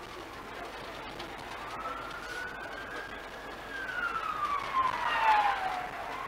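Emergency vehicle siren wailing: a single slow rise and fall in pitch, loudest during the fall near the end, then starting to rise again.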